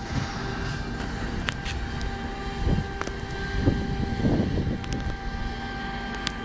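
Heavy engines running steadily: a low rumble with a constant hum, swelling a few times, with some sharp knocks and clicks.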